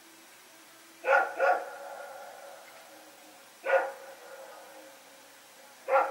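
A dog barking at night: a quick double bark about a second in, a single bark a little after the middle, and another at the very end, each trailing off in an echo.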